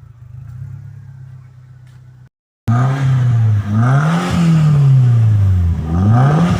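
Volkswagen Gol G3 1.0 16-valve engine idling steadily through a homemade exhaust tip and muffler. After a sudden cut it is revved hard about three times, its pitch rising and falling with each rev, a sound the owner calls a turbo sound.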